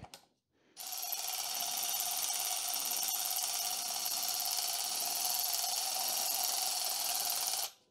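Cordless electric ratchet running steadily, spinning down the threaded rod of a valve spring compressor to compress an engine valve spring. It starts about a second in and stops abruptly near the end.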